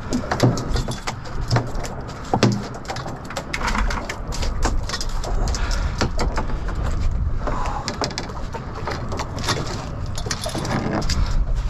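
Irregular knocks and taps on a fiberglass skiff deck as a freshly landed sheepshead flops and is handled, over a steady low rumble of wind and lapping water.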